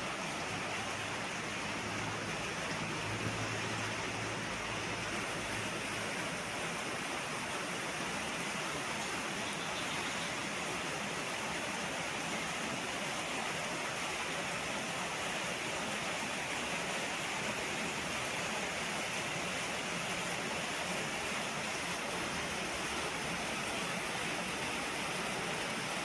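Steady heavy rain falling, an unbroken even hiss that holds the same level throughout, with a faint low hum that dies away in the first several seconds.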